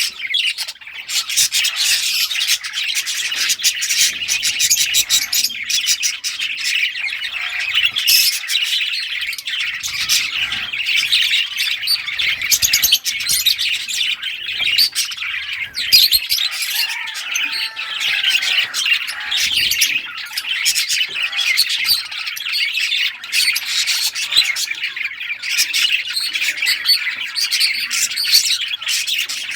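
A flock of budgerigars chirping and chattering together, many overlapping rapid high warbles and squawks with no pause.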